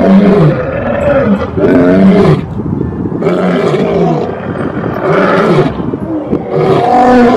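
Two male lions roaring in a bout: a run of loud roars, one every second or so, passing between the two animals.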